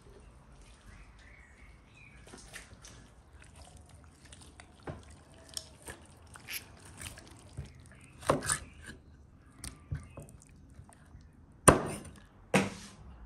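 Raw whole chicken being handled and cut with a large knife on a wooden cutting board: soft wet squishing and small taps, then two sharp knocks of the knife on the board near the end.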